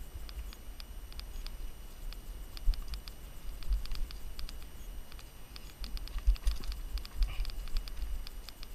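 Mountain bike rolling fast down a dirt singletrack: a steady run of irregular clicks and rattles from the bike and its tyres over leaves and stones, with low thumps as it hits bumps. The clicking grows busier a little past the middle.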